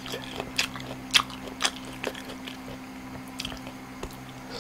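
A person chewing a mouthful of food close to the microphone, with irregular crisp crunches, denser in the first two seconds, over a low steady hum.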